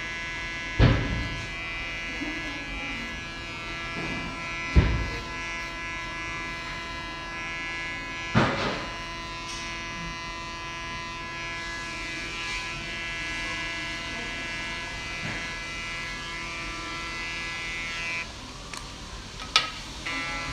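Electric hair clippers running with a steady hum as they cut hair, with three dull thumps in the first half. The clippers cut out near the end, followed by a sharp click.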